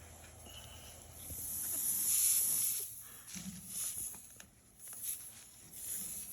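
Air hissing out of a tire puncture while a plug-kit rasp tool is twisted and worked in and out of the hole, with irregular scraping and rubbing. The hiss swells about a second in, then gives way to scraping.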